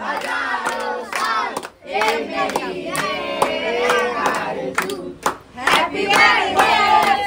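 A group of people singing and shouting together in celebration, with hand claps among the voices.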